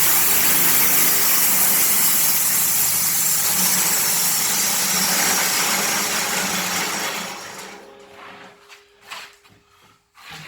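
Honda petrol engine of a sawmill running with the blade cutting through timber. The run fades out and stops about seven seconds in, and a few short knocks follow near the end.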